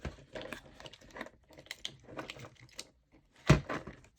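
A tubular lock pick inserted into a hitch pin lock and twisted, with a run of small metallic clicks and one sharper click about three and a half seconds in, as the lock is picked open.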